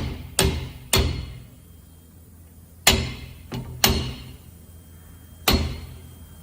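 Hammer tapping a bush installation tool to drive a fiber guide-pin bush into a truck air-disc brake caliper bore. There are five firm taps at uneven, unhurried intervals and one lighter tap, each with a short ring.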